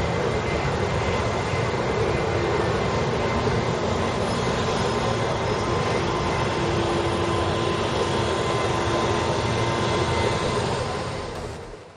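Steady roar of city traffic and street noise, a dense even rumble with a few faint humming tones, fading out near the end.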